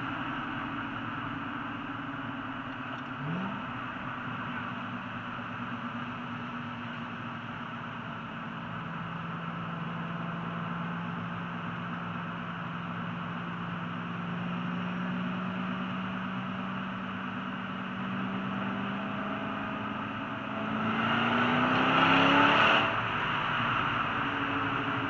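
Ford GT's engine heard from inside the cabin, cruising with a steady drone over road noise. Near the end it revs up hard for about two seconds as the car accelerates, then eases off.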